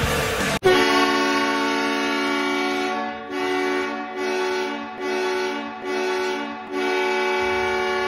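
Oshawa Generals hockey goal horn sounding: one long blast, then four short blasts, then another long blast. It comes in sharply about half a second in, right after rock music cuts off.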